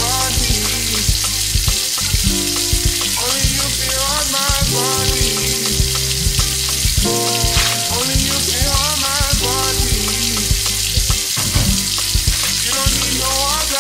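Background music: a song with held bass notes and chords and a wavering melody line, under a steady hiss.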